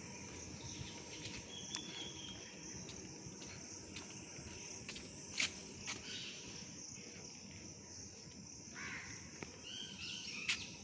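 Steady high-pitched buzz of an insect chorus among trees, with a few sharp taps of footsteps on paving and short bird calls near the end.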